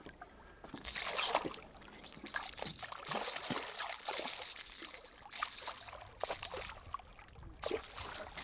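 Hooked fish thrashing at the water's surface, throwing up splashes in repeated bursts with short pauses between them.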